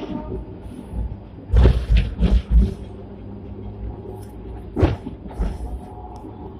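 Sixth-generation Hong Kong double-decker electric tram running on its track, heard from inside the lower deck: a steady low rumble with a cluster of heavy clunks about one and a half to two and a half seconds in, and a single sharp knock about five seconds in.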